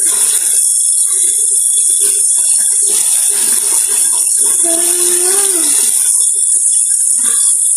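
Tap water running in a steady hiss, with a child's voice humming one short note about five seconds in.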